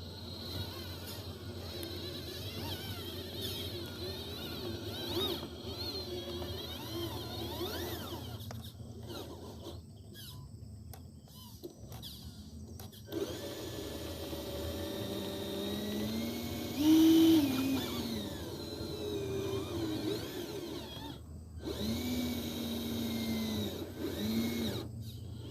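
Small electric motors of radio-controlled construction models whining, the pitch rising and falling as they speed up and slow down, with a few short pauses; loudest about two-thirds of the way through.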